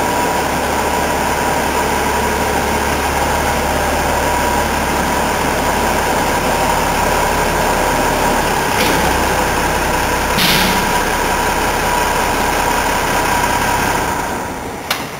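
Unimog road-rail tractor's engine idling steadily, with two brief sharp noises just past the middle.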